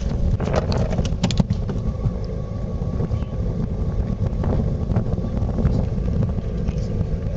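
Wind buffeting the microphone outdoors on a boat, a steady low rumble with a faint steady hum beneath it and a few sharp clicks in the first second and a half.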